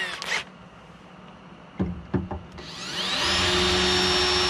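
Cordless drill spinning up with a rising whine, then running steadily for about two seconds while drilling a pilot hole into the boat's console. A couple of short knocks come just before it starts.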